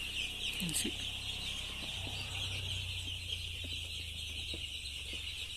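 A flock of six-day-old broiler chicks peeping constantly in a dense, high-pitched chorus, over a faint low hum.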